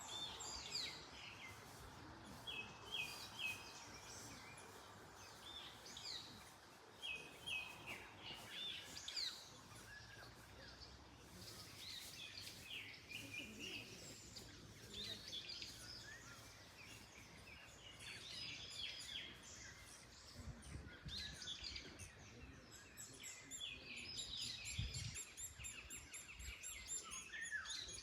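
Several small songbirds chirping and singing in short repeated phrases over a low, steady rush of wind. Near the end a fast, very high trill joins in.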